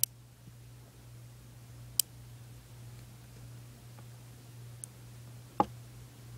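Buckyballs, small neodymium magnet balls, snapping onto one another as a line of them is built. There are a few sharp clicks, spaced a second or two apart with fainter ticks between, and the loudest comes near the end.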